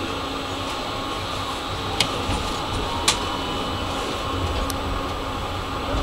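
Tram running along street track, heard from inside the cab: a steady hum and rumble, with two sharp clicks about two and three seconds in.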